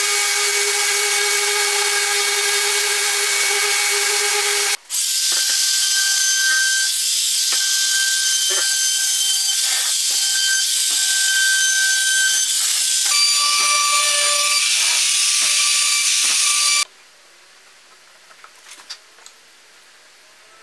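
Electric power tool running at a steady speed with a constant pitched whine, cut off briefly about a quarter of the way in, then running again with scattered light knocks. It stops abruptly about three-quarters of the way through, leaving only faint room sound with a few small taps.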